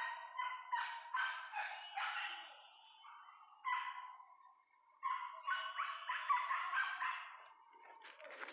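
Boar-hunting dogs yipping in quick runs of high yelps, three bursts with short pauses between them.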